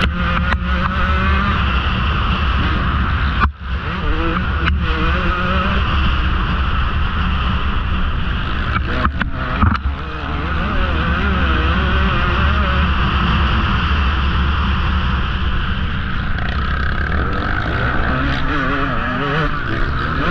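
Two-stroke KTM XC-W 150 dirt bike engine running at high revs, heard close from the rider's helmet, its pitch rising and falling with the throttle. The engine note drops out briefly about three and a half seconds in and again around nine to ten seconds in.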